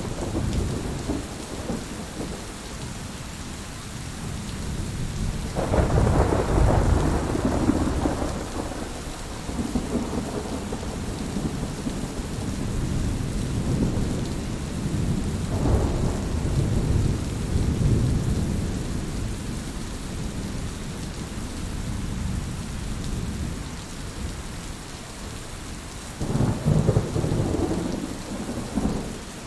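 Steady rain with thunder rumbling: a deep roll breaks in suddenly about six seconds in and lasts a few seconds, another swells around the middle, and a third rolls near the end.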